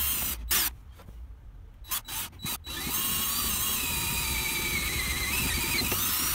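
DeWalt cordless drill with a 9 mm twist bit boring through the van floor's plywood and steel panel. A few short starts and stops come in the first three seconds, then it runs steadily with a high squealing whine from the bit cutting metal.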